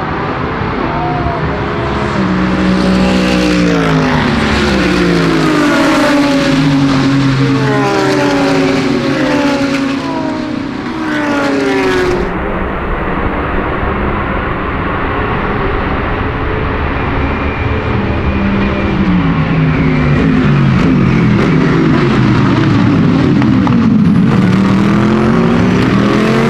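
GT race car engines at racing speed: the engine note climbs and drops back in quick steps as the cars shift up through the gears, then later falls as they brake and downshift and climbs again as they accelerate away near the end.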